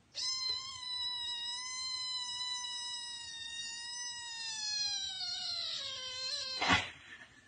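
Kitten giving one long, drawn-out meow that holds a steady pitch for about four seconds, then falls in pitch before breaking off. A short, loud, noisy burst follows right after.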